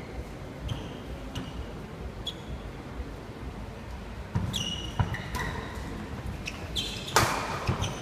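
Badminton doubles rally on a wooden indoor court: rackets knocking the shuttlecock back and forth, with shoes squeaking and footfalls on the boards. The sound grows louder and busier near the end as a player leaps for a jump smash.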